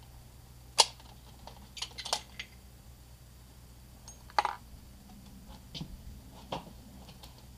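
A handful of sharp clicks and small metallic clinks from handling a rifle and loose brass cartridges in a plastic ammo box, the loudest click about a second in. No shot is fired.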